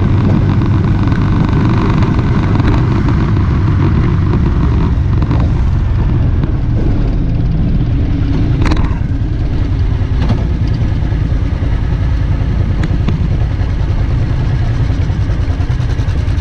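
Motorcycle engine running steadily at road speed, heard from on the bike, under heavy wind noise on the microphone. There is a short whoosh about nine seconds in, after which the level drops a little.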